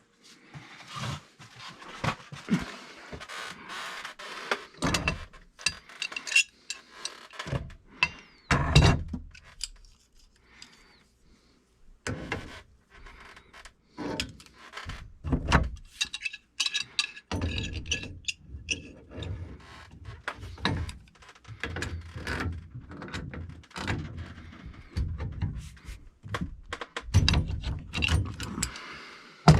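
Irregular knocks, clanks and clicks of hand tools and metal plumbing fittings being handled, some with a brief metallic ring.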